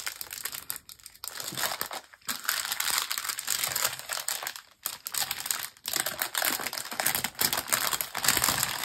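Clear plastic packaging bag crinkling and rustling as it is opened and handled, with the small resealable bags of diamond-painting drills inside it; irregular crackling with a few brief pauses.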